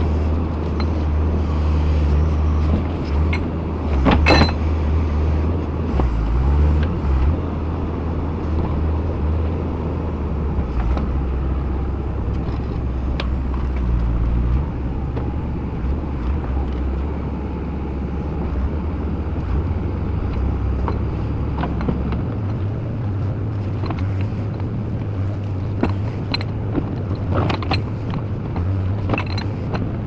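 JCB 4CX backhoe loader's diesel engine running steadily, its low drone rising and falling in pitch as the digger works. A few sharp metallic clanks come through, the loudest about four seconds in and two more near the end.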